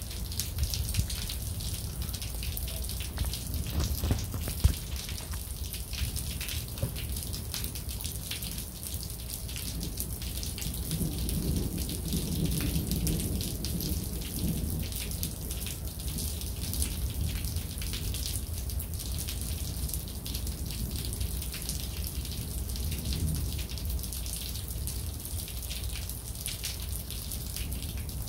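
Rain falling in a steady patter of drops, with a couple of sharper drop hits near the start. A low rumble of distant thunder swells about ten seconds in and fades a few seconds later.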